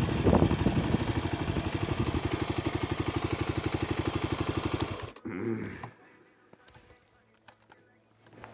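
A vehicle engine idling with an even, rapid pulse, then switched off about five seconds in, after which it goes much quieter apart from a faint low hum.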